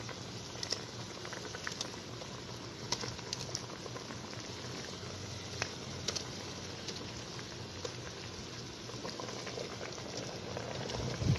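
Pot of spiced yogurt-and-water curry base boiling with a steady bubbling, with scattered small plops and splashes as beef kofta meatballs are dropped in one at a time.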